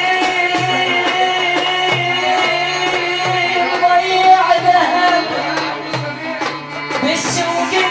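Iraqi traditional ensemble music: a long held melodic note with overtones that turns into wavering ornaments near the end, over a steady repeating pattern of hand-drum strokes.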